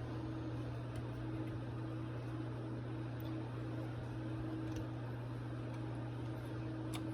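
A steady mechanical hum with a fainter wavering higher tone over it, and a light click near the end.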